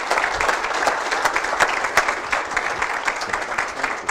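Audience applauding at the end of a talk: many hands clapping in a dense, steady patter.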